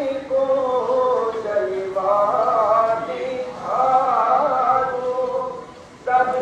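A man singing a slow devotional song in long, wavering held phrases over a steady drone note, with a brief break shortly before the end as a new phrase begins.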